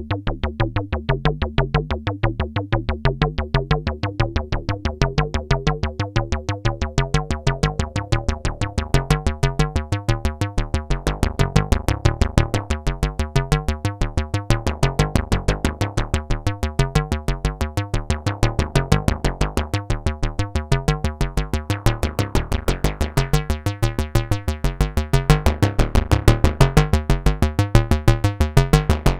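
Behringer Octave Cat analog synthesizer playing a fast sequenced bass line of short, evenly repeating notes. Its filter opens over the first few seconds so the tone grows brighter, and the timbre keeps shifting after that.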